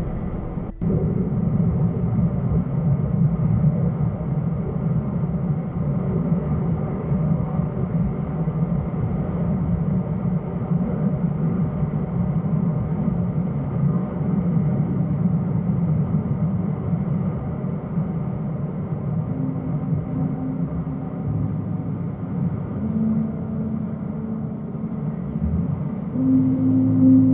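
Scania truck's engine and road noise picked up inside the cab by the dashcam: a steady low drone while driving, briefly cutting out about a second in.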